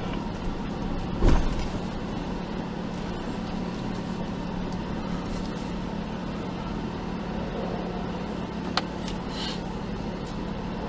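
Jeep engine running low and steady while crawling up rock, with one loud thump about a second in.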